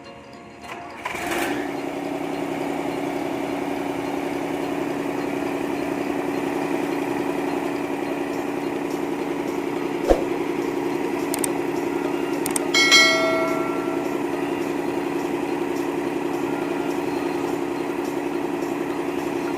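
Hitachi UH07 backhoe's diesel engine running steadily, setting in about a second in, with a sharp knock about halfway through and a short metallic ringing clink a few seconds after.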